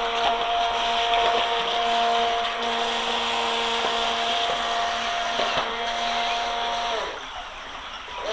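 Small electric motor of an RC jet boat's water-jet drive whining steadily at one pitch, over the rush of a shallow brook. The whine cuts off about seven seconds in as the boat slows, leaving only the flowing water.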